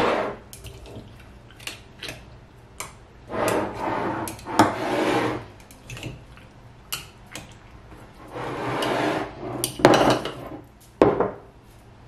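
A wooden stick working down through roasted green pepper pieces inside a glass mason jar, releasing trapped air before canning: several scraping, squelching bursts with sharp clicks of the stick or jar against glass between them.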